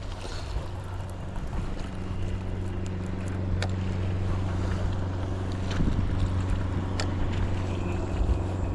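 A steady low motor hum over wind noise, with a few sharp clicks.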